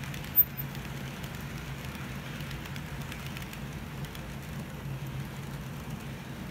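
HO scale model freight cars rolling along the track: a steady low hum and rumble of wheels on rail. A single sharp tick about half a second in.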